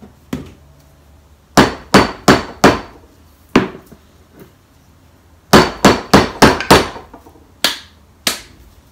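A glass jar of marinara sauce knocked hard to loosen its stuck lid: sharp knocks with a short ring, in a quick run of four, a single one, then a run of five and two more.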